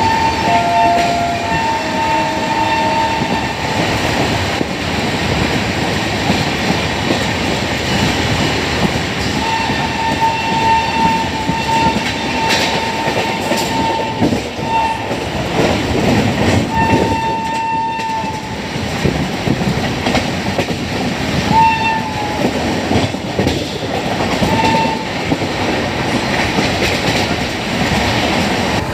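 WAP-7 electric locomotive's shrill horn sounding in a series of blasts on one high steady note: a couple near the start, a long one about ten seconds in, then shorter toots. Underneath is the steady rumble and wheel clatter of the running train, heard from aboard.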